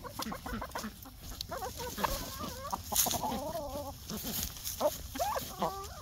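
Hens clucking in short, wavering calls, in two spells.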